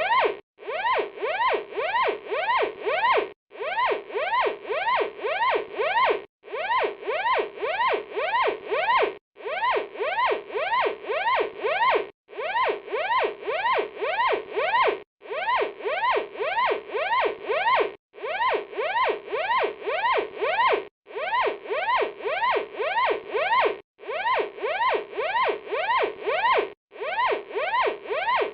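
Electronic fire alarm sounding a fast rising whoop, about three sweeps a second, in runs of about three seconds separated by short breaks.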